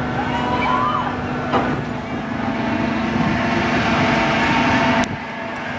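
Spinning swing ride with boat-shaped gondolas running: a steady machinery hum under a rushing wash of noise, with a few children's voices rising and falling over it. The sound drops abruptly about five seconds in.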